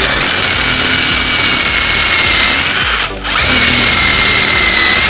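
Power drill boring a starter hole through a wooden board for a jigsaw blade. The motor runs with a steady high whine, lets off briefly about three seconds in, then runs again.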